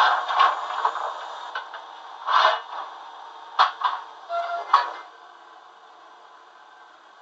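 Sound effects from the small loudspeaker of a Fleischmann BR41 model steam locomotive's DCC sound decoder: a string of irregular clanks and short hisses over a steady hiss that drops away about five seconds in.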